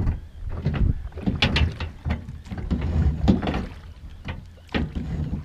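Oars working in the rowlocks of a metal rowboat: irregular knocks and clunks with each stroke, over a low rumble of wind on the microphone.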